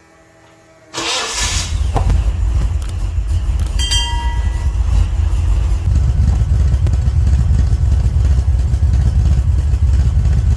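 A car engine starts about a second in, then runs with a loud, steady, deep rumble.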